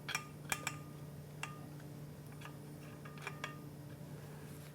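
A few scattered light metallic clicks and taps, some with a short ring, as the spring-loaded valve parts on a nut driver are worked into the air rifle's valve tube.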